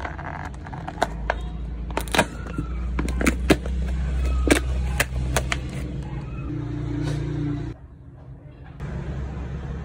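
Sharp clicks and crackles of plastic snack packaging being handled and opened, over a low steady rumble that cuts off suddenly near the end.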